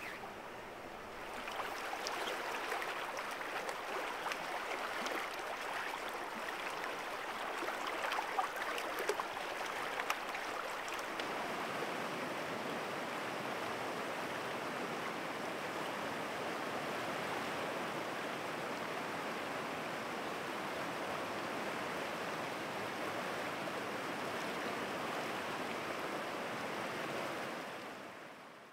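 Steady rushing of river water, with a few brief clicks about eight to ten seconds in; it fades out near the end.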